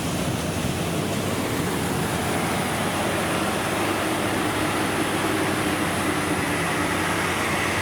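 Rice combine harvester's diesel engine running steadily under load, a dense even machine noise with a faint whine over it.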